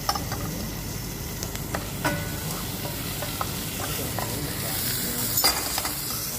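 Diced carrot, celery and onion sizzling as they brown in a hot pan and are stirred, with a utensil knocking against the pan several times, the loudest knock about five and a half seconds in.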